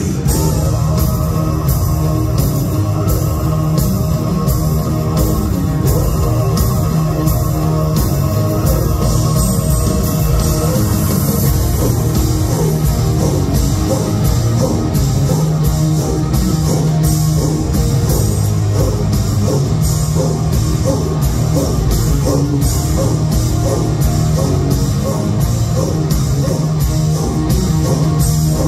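Live heavy rock from a Mongolian folk-metal band: drums, guitars and singing, played loud and without a break.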